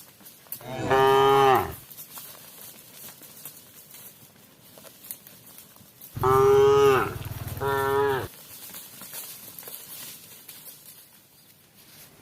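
Cow mooing: one long moo about a second in, then two more moos in quick succession a few seconds later.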